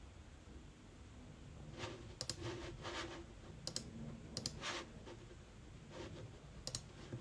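Faint scattered clicks, several in quick pairs, with a few short rustles of handling in between, bunched in the middle of the stretch.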